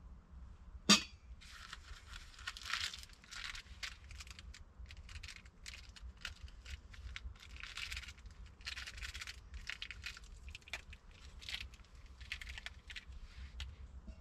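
Irregular rustling and crinkling noises, with one sharp click about a second in.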